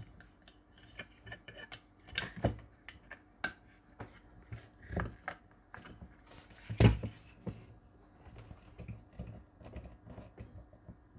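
Scattered clicks and knocks of a plastic circuit-board holder being handled and adjusted, its clamp jaws and arms moved by hand. The loudest knock comes about seven seconds in.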